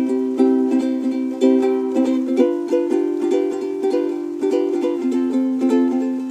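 Ukulele played with a steady rhythm of strummed chords, each strum starting sharply and ringing on.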